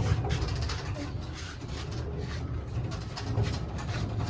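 Husky rolling tool box rumbling over the ground on its casters, with an uneven low rumble and loose rattling.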